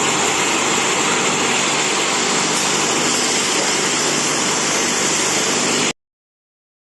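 Glass tempering furnace line running: a steady machine hum under a loud, even hiss. It cuts off abruptly about six seconds in.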